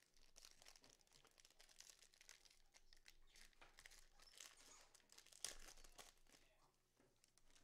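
Faint crinkling and tearing of a trading-card pack wrapper as it is opened, with one sharp click about five and a half seconds in.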